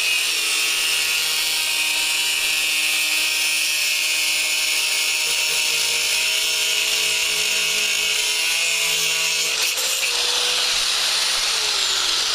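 Handheld power tool cutting through the swing set frame's rusted metal tube: a steady motor whine with a bright hiss from the cut. Near the end the motor winds down, falling in pitch.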